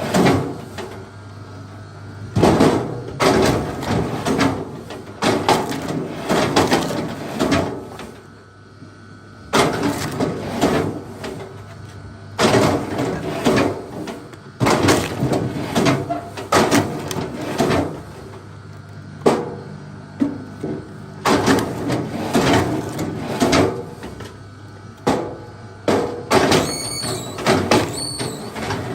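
Wood being split: repeated groups of cracking and splintering about every two seconds, over a steady low hum, with a brief high squeak near the end.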